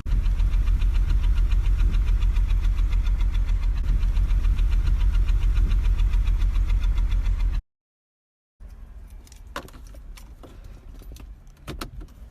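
Exhaust of a 2007 BMW 325i's N52 inline-six idling, heard at the tailpipe with a regular rapid pulsing; the engine is misfiring on several cylinders. It breaks off about seven and a half seconds in, and the engine is then heard fainter with several sharp clicks.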